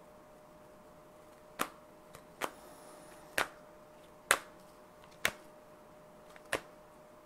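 An oracle card deck shuffled by hand: six sharp slapping clicks of the cards, about one a second, as he works the deck to draw the last card.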